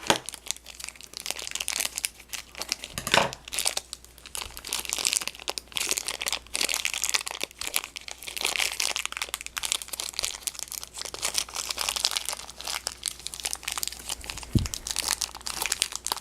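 Packaging crinkling and crackling as it is handled and opened, with a sharper knock about three seconds in and another near the end.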